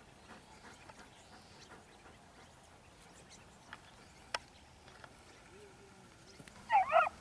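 Open-field quiet with faint light ticks and one sharp click about four seconds in; near the end hunting beagles start baying in a run of loud, high, bending cries, the hounds giving voice as they chase a rabbit.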